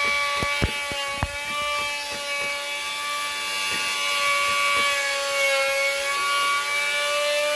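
A power tool's motor whining at a steady pitch, with scattered light knocks and clicks, most in the first second or so.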